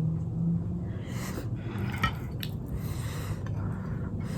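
Close-up wet chewing of momos soaked in spicy jhol gravy: squishy, liquid mouth sounds in short bursts with a couple of sharp clicks about two seconds in, over a steady low hum.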